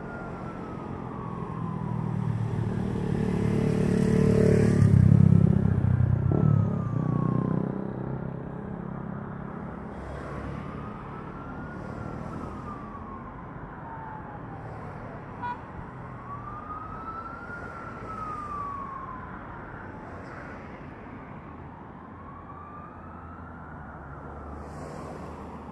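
A siren wailing slowly up and down, rising and falling about once every five or six seconds. Under it a low engine rumble swells to its loudest in the first few seconds and fades away.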